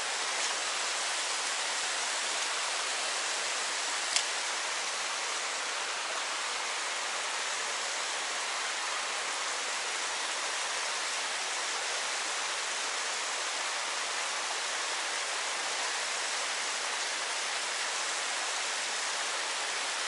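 Mountain stream water rushing steadily over a shallow riffle, with one sharp click about four seconds in.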